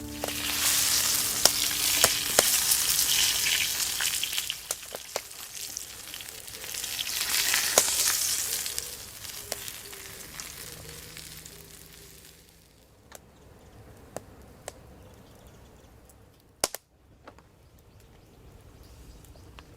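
Food sizzling in a hot frying pan over a campfire, with scattered sharp pops. It swells twice in the first nine seconds, then dies down to a faint hiss with occasional pops.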